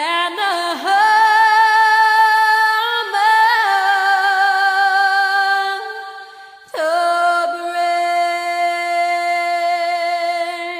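A woman singing unaccompanied, holding two long notes with a slight waver in pitch: the first from the start, shifting pitch a little about three seconds in and fading near six seconds, the second entering suddenly about seven seconds in and held to the end.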